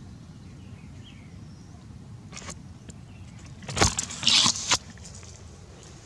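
A click, then about four seconds in a short loud burst of rustling and crackling, as of dry leaves and twigs being brushed or trodden, over a steady low background rumble.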